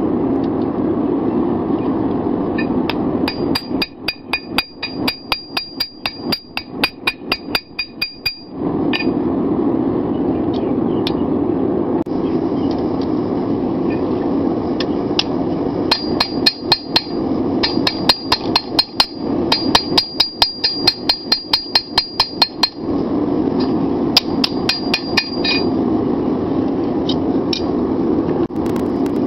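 Hand hammer striking red-hot 5160 steel on an anvil in runs of quick blows, about three a second, each with a bright high ring. There are two long runs, from about 3 to 8 seconds in and from about 16 to 23 seconds in, and a short one just after. A steady low rushing noise runs underneath.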